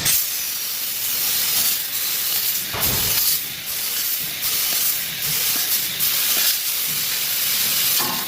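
Deco laser tube cutting machine hissing steadily as its cutting head's gas jet cuts through a metal tube, the hiss swelling and easing every second or so.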